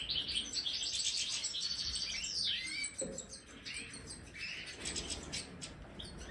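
A flock of European goldfinches twittering and calling while they feed, in dense overlapping chatter for the first two or three seconds, then in scattered short calls.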